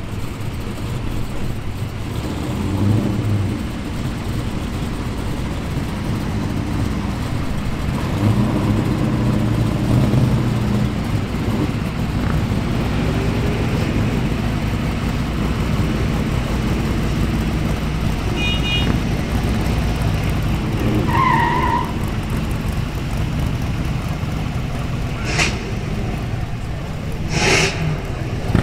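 V8 classic cars and a pickup truck driving past one after another, their engines rumbling and revving as they pull away; a motorcycle engine comes in near the end. Two short sharp noises sound near the end.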